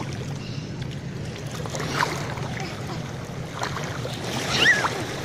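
Sandalled feet wading through shallow seawater, the water sloshing and splashing at each step, over a steady rush of wind and surf. A short high cry is heard near the end.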